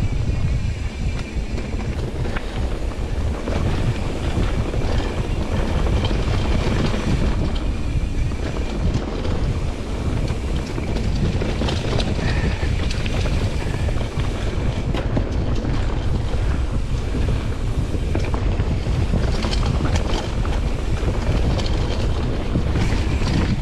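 Mountain bike ride heard from a body-mounted action camera: steady wind rumble on the microphone with frequent small knocks and rattles from the bike over rough trail.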